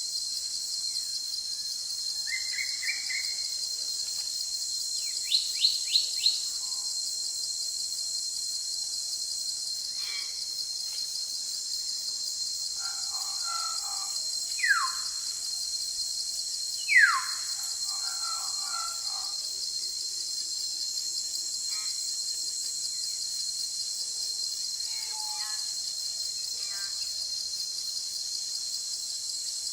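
Forest ambience: a steady high drone of insects, with scattered bird calls over it. The loudest calls are a run of four quick high notes about five seconds in and two sharp falling whistles about halfway through.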